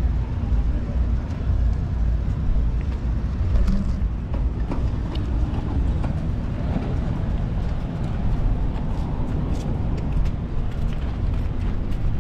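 Steady low rumble of city street and traffic noise heard from a moving bicycle, with a few faint clicks and ticks.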